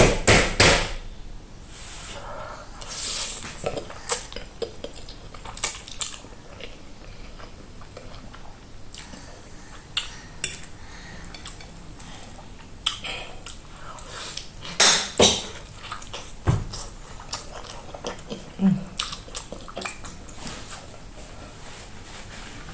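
Cutlery clinking and scraping against dishes in scattered sharp knocks, with mouth-close chewing between them.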